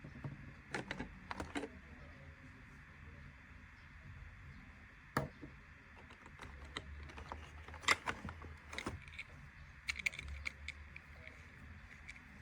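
Irregular light clicks and taps of small plastic toy pieces being handled and set down, a few at a time, over a faint low hum.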